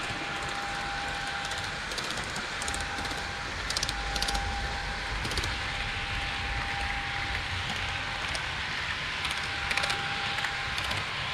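HO-scale model train rolling along its track, heard from a camera riding on the train: a steady rumble with a faint steady whine that comes and goes, and scattered sharp clicks.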